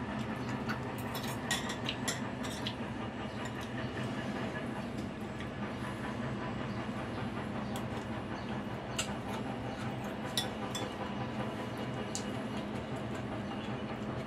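Eating noodle soup: noodles slurped and broth sipped, with a metal fork and spoon clinking sharply against a ceramic bowl several times. A steady low hum runs underneath.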